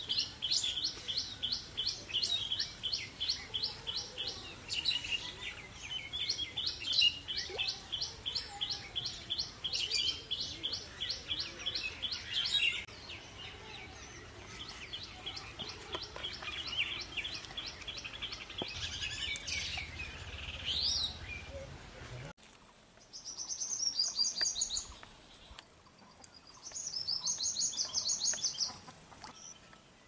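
A bird calling in long runs of rapid, evenly spaced high chirps, about five a second, over low outdoor background noise. About 22 seconds in the background cuts off abruptly, and two short buzzy trills follow.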